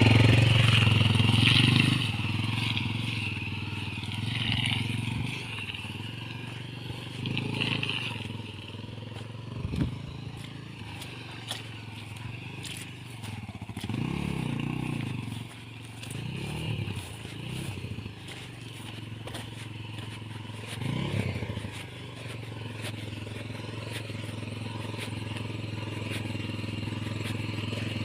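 Motorcycle engine running as it is ridden along a road, rising and falling in pitch several times as the rider speeds up and eases off, with scattered clicks and crunches from the road.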